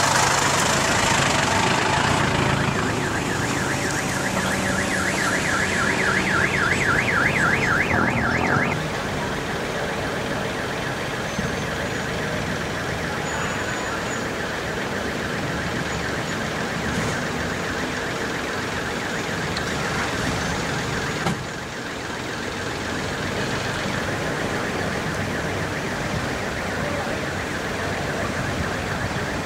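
An electronic siren warbling rapidly up and down for about six seconds, starting a couple of seconds in, over a steady noisy din that carries on after the siren stops.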